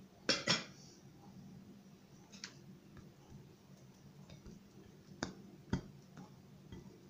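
Clicks and taps of a round metal burger press being handled while pressing ground-meat patties: two sharp clicks close together right at the start, then a few lighter taps, one fairly sharp about five and a half seconds in.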